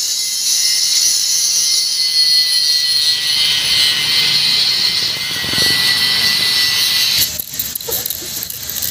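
Electric angle grinder with a sanding disc running with a steady high whine as it sands the top of a carved stone block. About seven seconds in the whine stops and short scraping strokes of a hand tool on stone follow.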